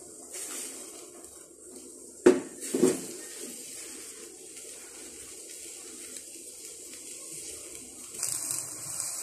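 Two clunks of a metal baking tray of shaped dough balls being set down on the stove top, over a low steady background from the pot. Near the end a louder hiss with small crackles sets in, like water at the boil.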